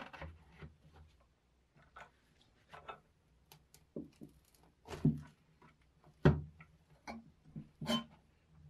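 A series of separate short knocks and clicks, about a dozen at irregular spacing, the loudest about five and six seconds in.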